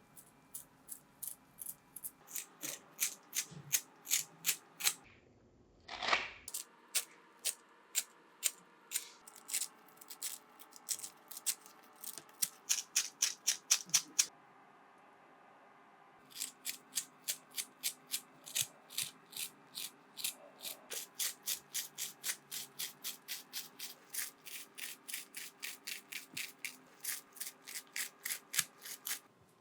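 Repeated scraping strokes, about three a second, in long runs with a pause of about two seconds midway. About six seconds in there is one longer, fuller whoosh-like sound lasting about a second.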